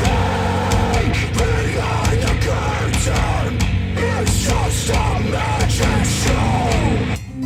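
A heavy rock track played loudly through Polk Audio R200 bookshelf speakers on a NAD C 338 integrated amplifier. Just before the end it cuts to a different track with plucked guitar notes.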